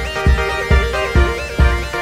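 Electronic background music: a steady kick-drum beat, about two beats a second, under a synth melody whose notes slide up and down.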